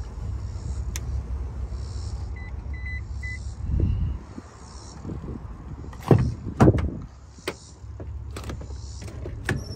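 Electric motors of a 2018 Toyota Sequoia's power-folding third-row seats running with a steady low hum, with a few short beeps while they move. About six seconds in come several loud knocks, then the motor hum starts again.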